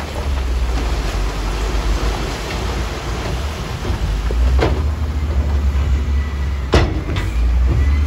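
SHACMAN dump truck unloading crushed stone: the rock slides out of the raised bed with a rushing sound over the steady low running of the diesel engine. The bed is lowered, with two sharp knocks a little past halfway and near the end.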